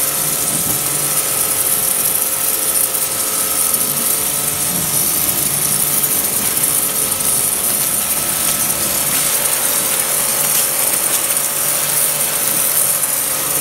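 Pressure washer running steadily, its pump holding a constant tone under the hiss of the water jet.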